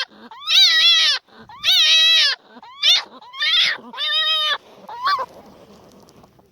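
An animal calling: about six short, pitched calls, each rising and falling in pitch, about one a second, ending a little after five seconds in.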